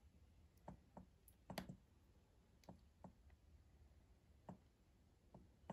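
Near silence with about seven faint, scattered clicks of a computer mouse, as a pen tool is picked in the whiteboard software.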